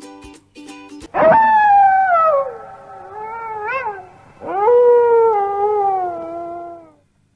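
Wolf howling: two long howls, the first sweeping up and then slowly falling in pitch, the second held lower and falling slightly at its end.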